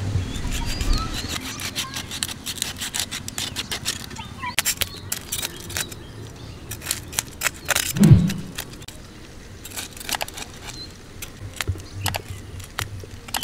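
A knife scraping and cutting at a tilapia while it is scaled and cleaned: a run of quick, irregular scrapes and clicks, with one louder thump about eight seconds in.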